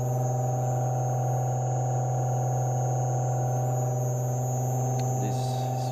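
Fisher Panda water-cooled brushless DC electric propulsion motor running on a test bench, giving a steady electric hum made of several unchanging tones, with no mechanical knocking. A brief hiss comes near the end.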